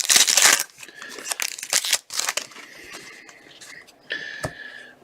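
Crinkling and tearing of packaging while trading cards are handled. The rustling is loudest at the start and again about two seconds in, with one sharp click near the end.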